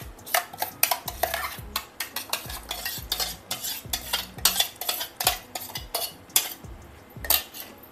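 A wooden spoon scraping and knocking inside a steel mixer-grinder jar and stirring a bowl as ground red chilli and buttermilk paste is emptied into the pickle. The scrapes and taps come irregularly, several each second.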